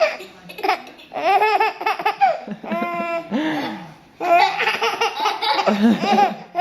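Baby laughing hard in repeated bursts of quick, hiccuping chuckles, with a short break about halfway through.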